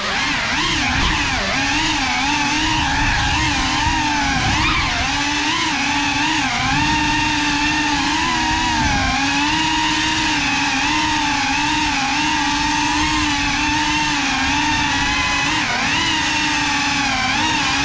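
FPV quadcopter's brushless motors and propellers whining, the pitch wavering up and down with constant throttle changes, heard close up from the camera riding on the drone.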